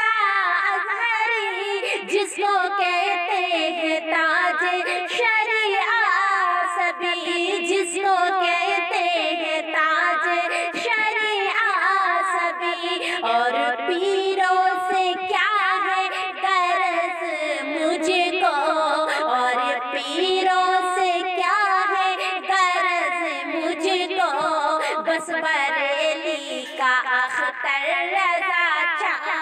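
A woman's high voice singing a naat, one melodic line held and wavering through long phrases without a break.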